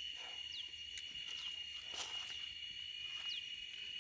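Outdoor wildlife chorus: a steady high-pitched insect drone, with short downward-sliding chirps repeating roughly once a second.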